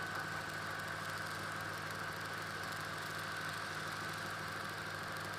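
A steady low hum with a faint high tone above it, unchanging throughout.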